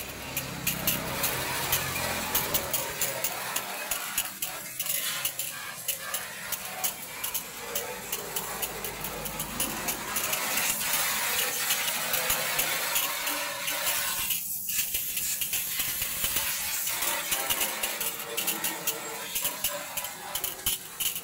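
A jet of water from a garden hose's spray nozzle hitting a metal checker-plate vehicle floor: a steady hissing spatter full of small crackles.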